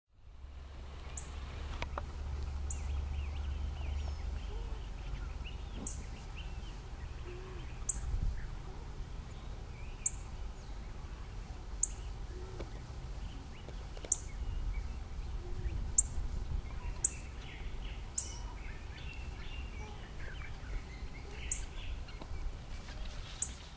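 Outdoor ambience: a low, steady rumble with a bird giving short, very high chirps every one to three seconds, and fainter bird calls scattered between them.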